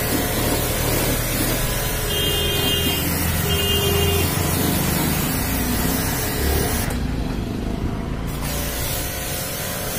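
High-pressure washer spraying water onto a car's rear bumper: a steady hiss of spray over a steady low hum. The hiss thins out about seven seconds in.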